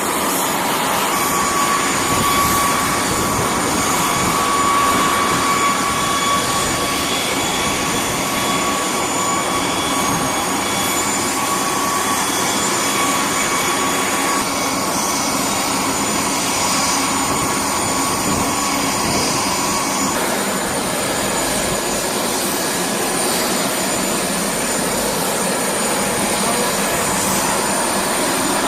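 Jet turbofan engines of a C-5M Super Galaxy running steadily, a loud even rush with several high, steady whining tones on top. The mix shifts slightly about 14 and 20 seconds in.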